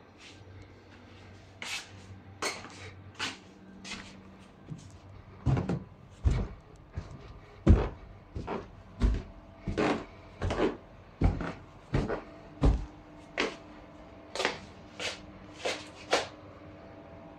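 Footsteps of a person walking through a house, about one and a half steps a second. In the middle stretch they land as heavier, deeper thuds on a staircase, then lighten again toward the end.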